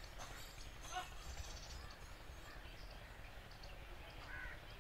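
Faint outdoor background with a few short bird calls, one about a second in and an arched call near the end.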